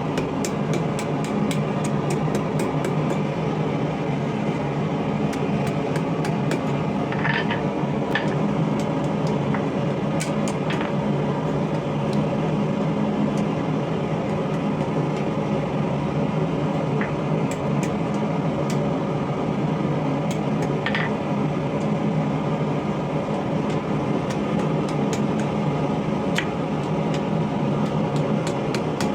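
Steady roar of a running forge, with scattered light clicks and taps over it.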